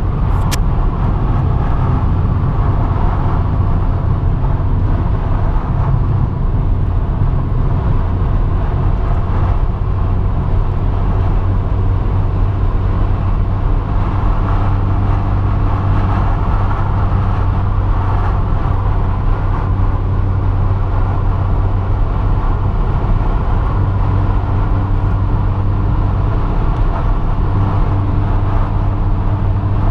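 Steady road noise heard inside a moving car: a low, even rumble of engine and tyres, with a faint higher hum that comes and goes.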